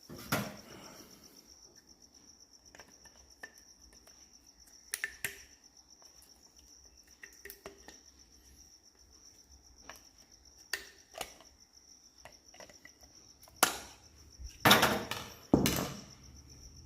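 Scattered clicks and clinks of hand tools and parts being handled on a motorcycle's fuel pump cover, with a cluster of louder knocks near the end. A steady high cricket chirp runs underneath.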